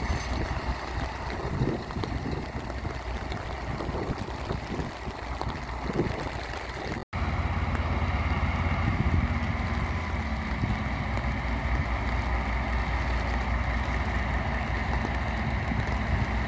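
ST48 diesel locomotive's engine running at low revs with a steady low rumble, under a haze of rain noise. It breaks off for a moment about seven seconds in and resumes steadier and stronger.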